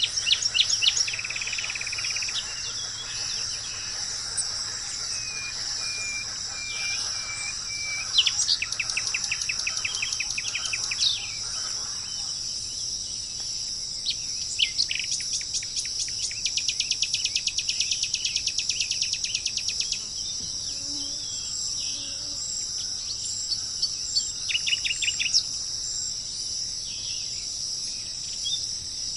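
Birds singing over a steady, high-pitched insect chorus of crickets. Several rapid trills of repeated notes stand out, the longest lasting about six seconds around the middle, with a run of short, even whistled notes before it.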